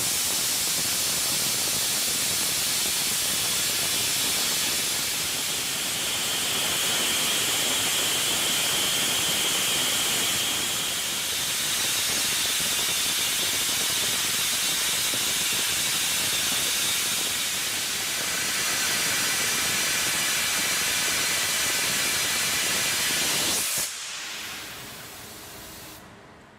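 Kjellberg CNC plasma torch cutting through thick metal plate: a loud, steady hiss from the arc and its gas jet. The cut stops suddenly about 24 seconds in, leaving a much quieter hiss that dies away.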